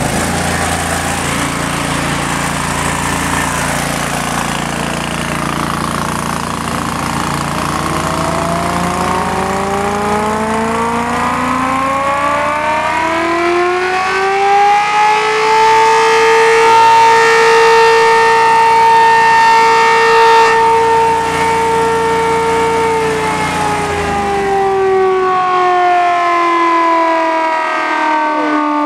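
Home-made air raid siren winding up from a low pitch over several seconds, holding a steady, very loud wail for about eight seconds, then winding down. A low steady hum runs underneath and stops as the pitch falls.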